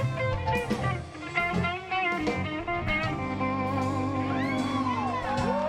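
Live blues band playing: electric guitar over keyboard, bass guitar and drums. In the second half the lead guitar bends notes up and down.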